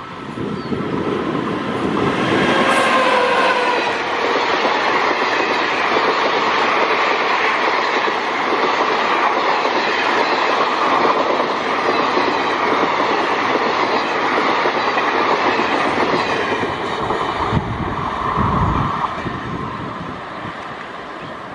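Passenger train passing close by at speed, hauled by a WAP-7 electric locomotive. As the locomotive goes by, a whine drops in pitch. Then the coaches rush past with loud, steady rolling wheel noise, which fades near the end as the last coach draws away.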